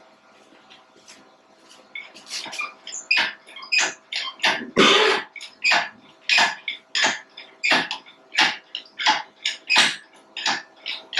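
Hand-worked hoist lifting the top section of a Dynapac LP650 roller: short metallic rattling strokes repeating about every two-thirds of a second, starting about two seconds in.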